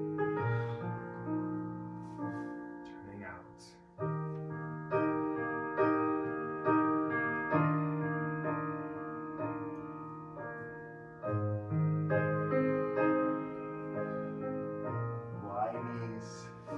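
Piano music of slow, sustained chords that change about once a second, with a short dip in level before a new phrase about four seconds in.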